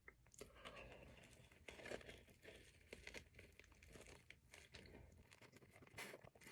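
Faint chewing of a big mouthful of cream cheese bagel: soft, irregular mouth clicks and crackles.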